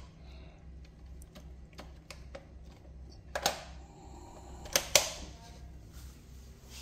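Plugs and the switch of a power strip being handled: scattered light clicks, with two louder sharp clacks about three and a half and five seconds in.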